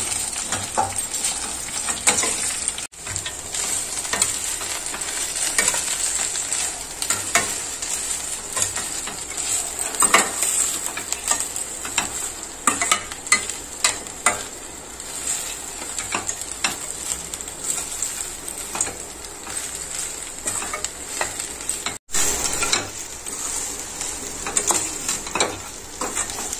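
Steel spatula stirring and scraping a dry fry of brinjal pieces, cashews and peanuts around a stainless steel kadai, with frequent clinks of metal on metal over a steady sizzle of hot oil. The sound cuts out suddenly for an instant twice, about 3 seconds in and again near the end.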